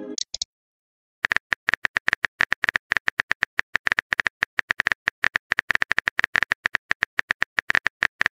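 Phone keyboard typing sounds: rapid clicks, about ten a second, as a text message is typed out letter by letter. They begin about a second in, after a short message blip at the very start.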